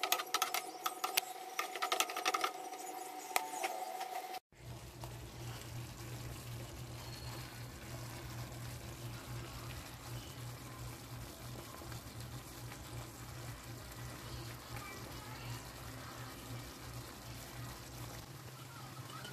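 A spatula clicking and scraping against a frying pan while chicken pieces are stirred in sauce for the first four seconds or so. After an abrupt cut, the chicken simmers quietly in its sauce over a steady low hum.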